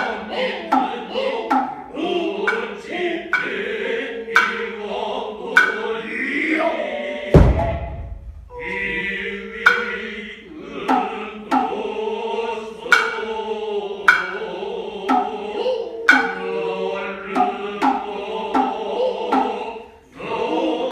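Noh music: the chorus chanting in low unison, punctuated by sharp strokes of the shoulder and hip hand drums (kotsuzumi and ōtsuzumi). A deep, heavy thump comes about seven seconds in.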